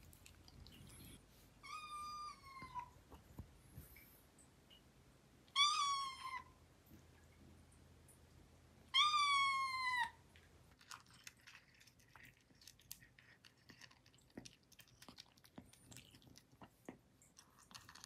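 Korean shorthair kitten meowing three times, each call falling in pitch, a hungry cat's call for food. Then many small crunching clicks as the kitten eats from its food bowl.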